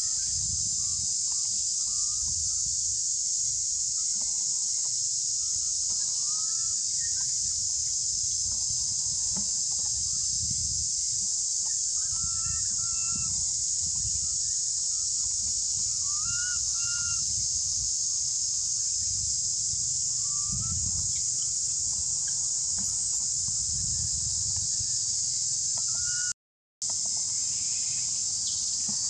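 An infant long-tailed macaque giving short calls that rise and fall, several times, over a steady high-pitched drone of insects. The sound cuts out briefly near the end.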